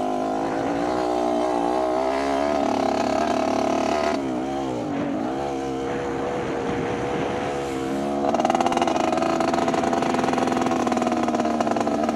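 Motocross bike engine revving hard, its pitch rising and falling with the throttle. It eases off about four seconds in, then opens up again, louder, near the eight-second mark.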